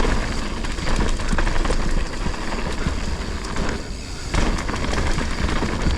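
Mountain bike rattling down a rough trail: tyres on dirt and rock with many small knocks and clicks from the chain and frame, and wind rumbling on the microphone.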